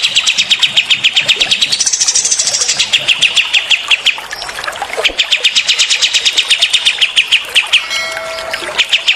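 Songbird giving rapid-fire trills, long runs of sharp notes repeated about ten times a second, with a higher-pitched phrase about two seconds in and a short pause around four seconds in. Beneath it runs a steady hiss of trickling water.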